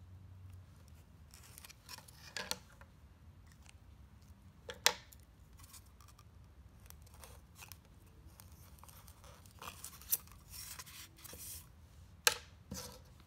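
Faint handling sounds: a marker and pen scraping on a styrofoam block, with several sharp clicks and taps as the tools are handled and set down on a wooden table.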